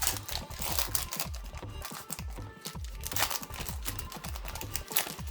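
Drum-and-bass background music with a steady beat, over the crackle and tear of a foil Pokémon card booster pack being opened by hand.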